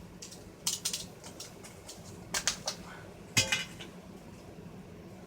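Short light clicks and clacks of plastic and metal parts being handled as a car radio's old touchscreen is unclipped and lifted out, in small groups about a second in, around two and a half seconds in, and loudest around three and a half seconds in.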